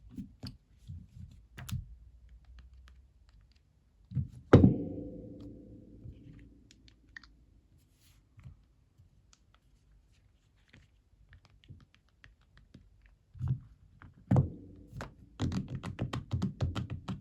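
Scattered clicks and knocks. About four and a half seconds in there is one loud thunk that rings briefly as it dies away, and near the end comes a quick run of taps.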